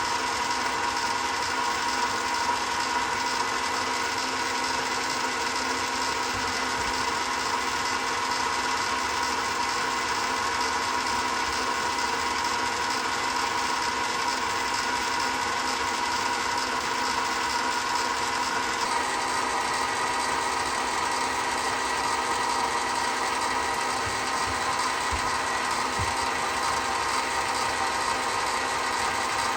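Chinese mini lathe running steadily, a motor and gear whine made of several steady tones whose pitch shifts slightly about two-thirds of the way in.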